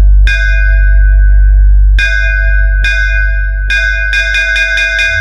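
Bass-boosted electronic sound-check music: a loud, steady deep sub-bass under repeated bell-like chime hits, the hits coming faster near the end.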